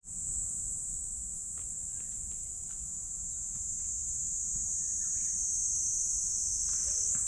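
A steady, high-pitched drone of insects shrilling, with a low rumble underneath.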